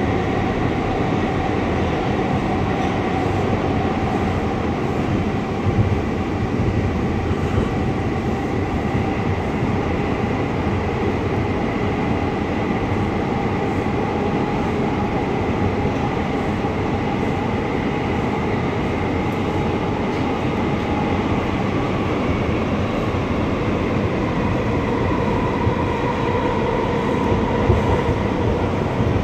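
Inside an R179 subway car running at speed through a tunnel: a steady rumble of wheels on rail with a steady whine over it. There are a couple of brief bumps about six seconds in and near the end.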